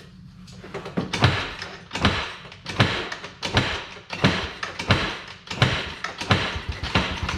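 A Can-Am engine that has been under water being turned over slowly and laboriously: nine heavy thunks, about one every three quarters of a second. Near the end it turns much faster in a quick, even chugging.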